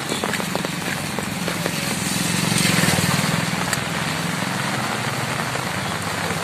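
A motor vehicle's engine running, growing louder to a peak about two to three seconds in and then easing. It sits over the steady hiss of heavy rain.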